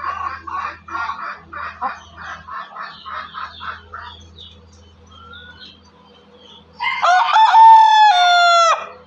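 Black long-tailed Ayam Cemani chickens clucking in quick short calls, about three a second, for the first few seconds; then, about seven seconds in, the rooster crows once, a loud crow about two seconds long that rises at the start and falls away at the end.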